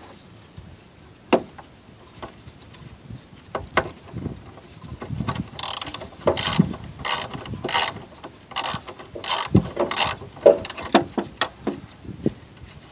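Ratchet wrench clicking as it backs the loosened 12 mm nuts off the front crash sensor mount, in a run of short strokes about two a second through the middle, with a few scattered tool knocks before it.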